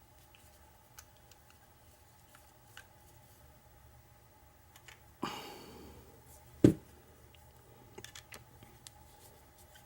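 Handling of a Medeco mortise lock cylinder and its key: faint scattered metal clicks, a brief rustle about halfway, then a single sharp knock a second and a half later, and a few light clicks near the end.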